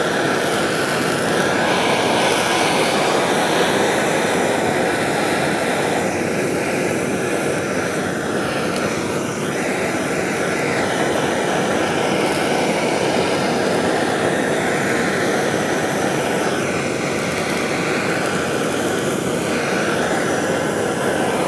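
Handheld MAPP gas torch burning with a steady, loud hiss of flame. It shuts off right at the end.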